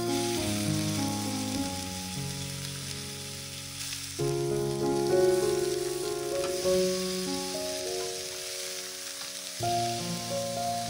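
Beef shank sizzling as it sears in hot oil in a frying pan, a steady hiss, under gentle background music of held chords that change about every four to five seconds.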